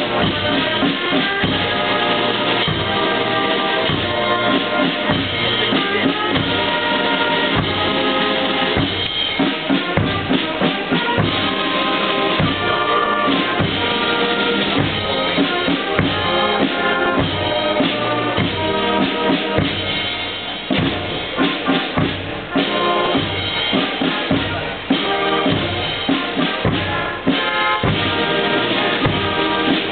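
Parade band music: a melody carried over steady bass drum and snare drum strokes.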